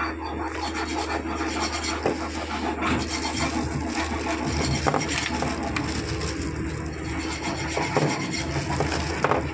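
Clear plastic bags crinkling and rustling as a hand handles bagged aluminium car AC expansion valves, with a few light knocks of the parts against each other.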